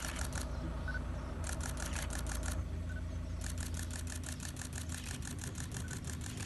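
Several cameras' shutters firing in rapid burst mode, about ten clicks a second, in three runs: one stops about half a second in, another runs for about a second, and a longer one starts at about three and a half seconds. Under them is a steady low rumble.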